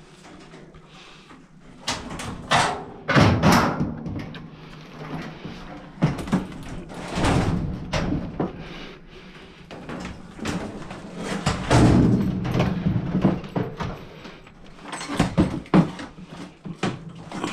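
Irregular knocks, scrapes and clattering of dryer parts being handled and moved during disassembly, over a steady low hum.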